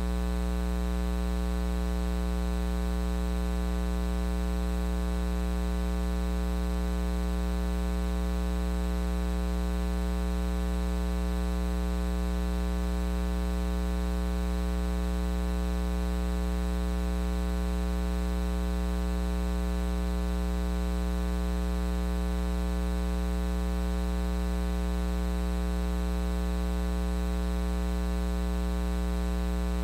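Steady electrical mains hum, a low buzz with a dense stack of overtones and no change in level or pitch.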